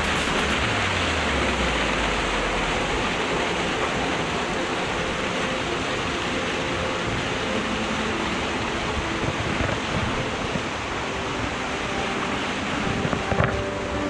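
A rocky mountain stream running over stones and small cascades: a steady rush of water.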